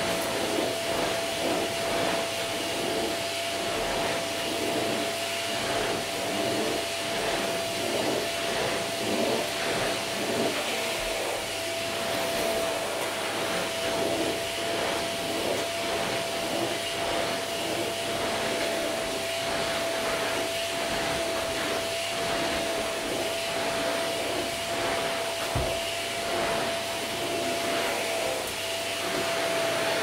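Vacuum cleaner running continuously on carpet: a steady, high motor whine over the rush of suction, with an uneven rustling as the nozzle moves over the carpet pile.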